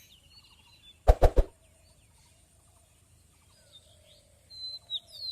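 Three loud, sharp cracks in quick succession about a second in, then small birds chirping in short gliding notes near the end.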